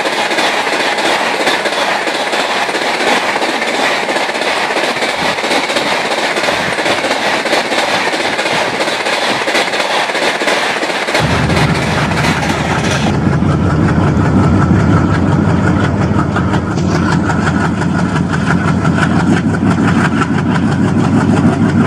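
Real train sound laid over the picture: railway coaches rolling past with a rapid clickety-clack of wheels on the rails. About eleven seconds in it cuts abruptly to the deep, steady drone of a running locomotive engine.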